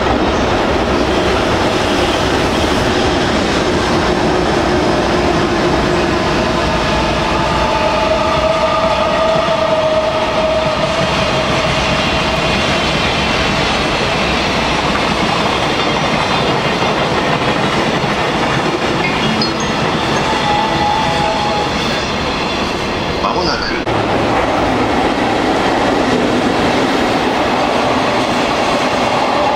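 Freight train of hopper wagons, container flats and a heavy Schnabel car rolling past behind an EH200 electric locomotive: a steady rumble and clatter of wheels over the rails, with faint squealing tones from the wheels now and then.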